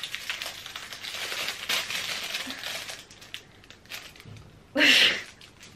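Clear plastic packaging crinkling and rustling as it is handled, fullest in the first three seconds, then a short louder burst about five seconds in.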